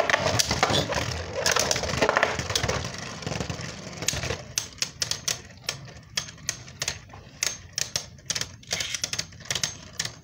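Two Beyblade Burst tops, Super Hyperion and Dusk Balkesh, spinning together in a plastic stadium. A dense scraping rush gives way, about four seconds in, to rapid, irregular clacks, several a second, as the tops knock against each other again and again.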